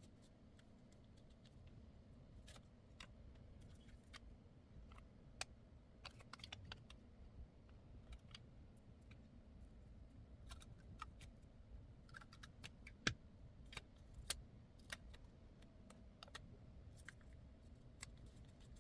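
Faint, irregular small clicks and taps over a low, steady room background, with two sharper clicks about two-thirds of the way through.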